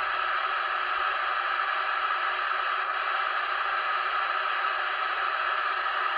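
CB radio's speaker hissing with steady static, no readable voice in it, switching on abruptly as the set goes back to receive on a noisy channel.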